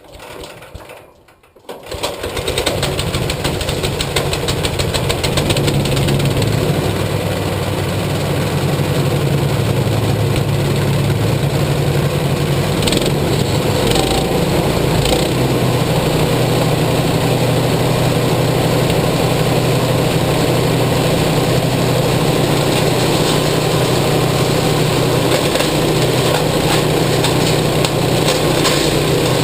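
Chipper shredder's 13 hp engine starting after a brief first attempt about two seconds in, then running steadily at speed.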